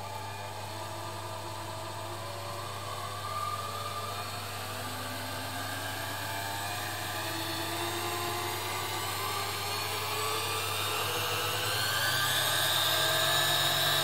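Bernina 1000 sewing machine's motor and bare mechanism running with a whine that rises steadily in pitch as it speeds up, loudest near the end. The motor runs again now that its failed capacitor has been replaced.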